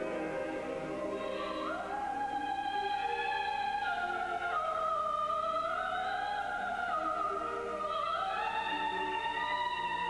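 Operatic classical music: a singing voice over orchestra, in long held notes that step up about two seconds in, dip in the middle and rise again near the end.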